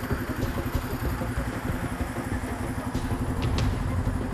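Motorcycle engine idling steadily with an even low pulse.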